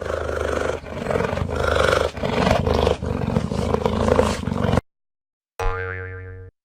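Cheetah growling and snarling in about four rough, rasping breaths, followed near the end by a short cartoon boing sound effect.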